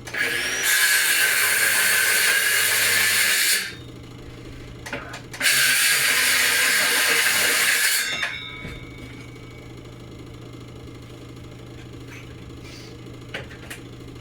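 A power tool run in two bursts, the first about three and a half seconds long and the second about two and a half seconds long, each starting and stopping abruptly, over a steady low hum.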